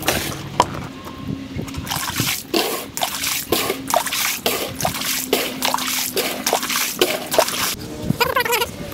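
Water trickling and splashing in quick, irregular drips, sped up four times: the last shallow water in an above-ground pool being drained through a hose.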